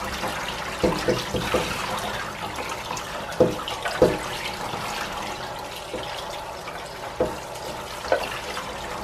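Kitchen tap water running onto chopped wild spinach (fumbwa) leaves in a stainless steel mesh colander, splashing into the sink while hands work the leaves under the stream. A steady hiss, broken by several short knocks.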